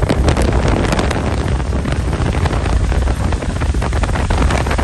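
Wind rushing over the microphone and road noise from a moving car in rain, with a low rumble and many sharp raindrop ticks scattered through it.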